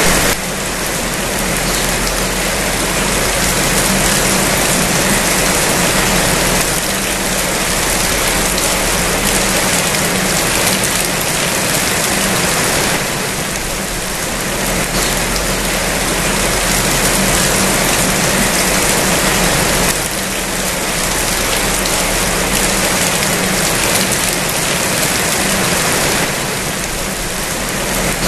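Steady heavy rain falling, a dense even hiss that swells and eases a little every few seconds, with a low steady hum underneath.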